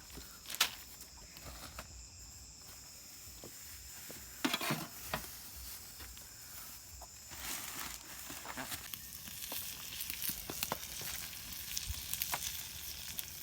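Food sizzling and crackling in a pan on the fire, the crackle growing busier in the second half, with a few knocks.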